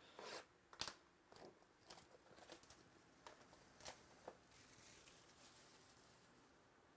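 Faint crinkling and tearing of a trading-card pack wrapper, with a scatter of short clicks as the cards are handled.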